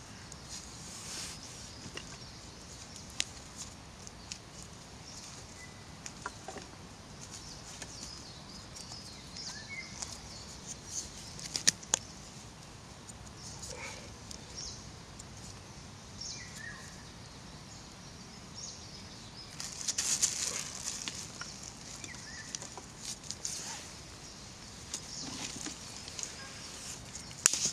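Damp branches and sticks being handled and stood up against each other for a teepee fire, rustling with scattered sharp knocks and clicks of wood on wood, the loudest about twelve seconds in. A small bird chirps briefly a few times.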